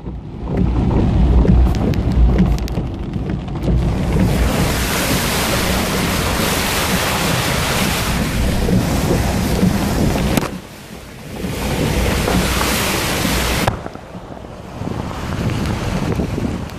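Car driving through a flooded street in heavy rain: water sprays and sloshes against the car's side, with wind buffeting the microphone. A low rumble comes first; from about four seconds in a loud rushing hiss of spray takes over, drops briefly around ten seconds, and cuts off suddenly near fourteen seconds.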